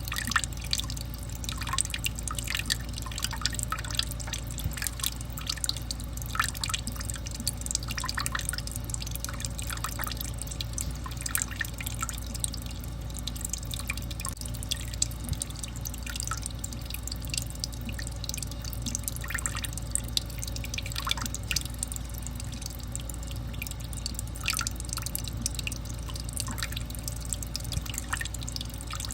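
Water drizzling in irregular drips and small splashes, several a second, over a steady low hum.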